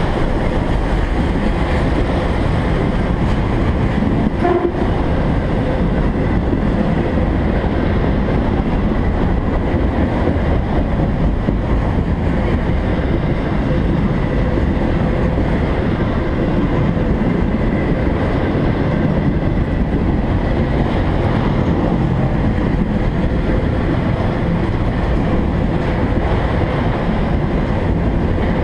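A string of autorack freight cars rolling past at trackside: a steady, loud rumble and rattle of steel wheels on the rails.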